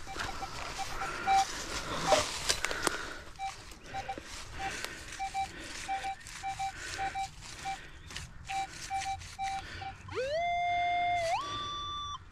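Metal detector signalling: short repeated beeps at one pitch, then near the end a longer tone that rises, holds and jumps to a higher note as the coil passes over a target, a non-ferrous reading. Leaves rustle and the gear clicks early on.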